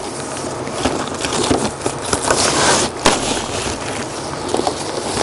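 Packing material rustling and crinkling as a camcorder is pulled out of its box, with scattered clicks and one sharp click about three seconds in.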